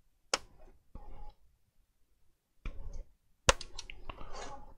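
A small screwdriver and screws clicking and scraping against an Advent Monza N1 laptop's plastic bottom case as the case screws are put back in. There are a few short bursts of handling noise, with the two sharpest clicks about a third of a second in and about three and a half seconds in.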